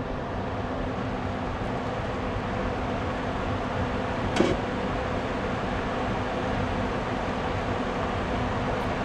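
Beef broth boiling hard in a wide frying pan: a steady rushing, bubbling noise, with one light clink about four and a half seconds in.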